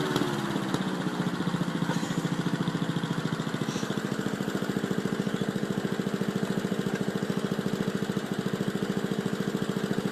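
Small lawn mower engine dropping from higher revs in the first second, then idling steadily with an even, fast pulsing beat.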